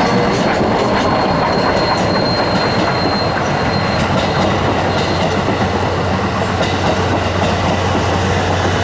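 SL Yamaguchi steam-hauled passenger train rolling past, loud and steady, its wheels clattering over the rail joints. A thin high wheel squeal runs through the first few seconds and then fades.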